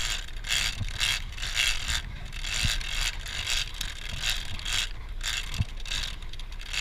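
Big-game trolling reel being cranked by hand to wind in line, its gears and ratchet clicking in a repeating pattern of roughly two bursts a second as the handle turns, with a few dull knocks.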